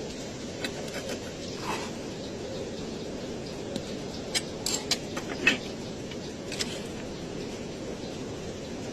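Scattered light clicks and taps of metal being handled in a workshop, the loudest about five and a half seconds in, over a steady low background hum.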